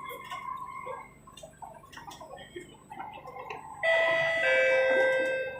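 Two-note descending electronic chime from a Singapore MRT train's public-address system, a higher note then a lower one, sounding loudly for about two seconds near the end over the faint running of the train.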